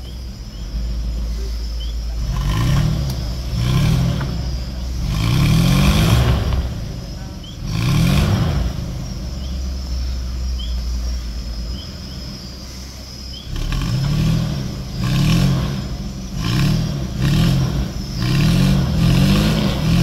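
A 4x4 pickup's engine revved hard in short repeated bursts, rising and falling, with a lull of a few seconds midway, as the truck tries to move forward in mud without its wheels finding grip.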